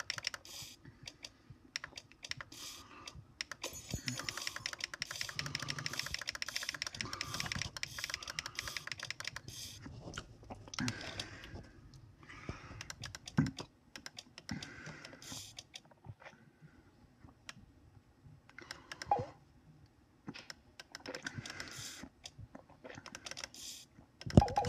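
Clicking and tapping on a laptop's touchpad and keys: a dense run of rapid clicks for several seconds, then scattered single clicks.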